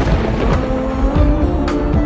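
Soundtrack music: a held tone that wavers and bends slightly in pitch over a heavy low rumble, with a few sharp hits.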